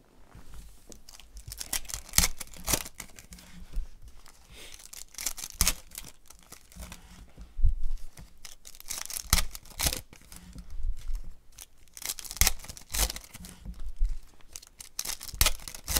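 Foil trading-card pack wrappers being torn open and crinkled by hand, in an irregular run of short tearing strokes.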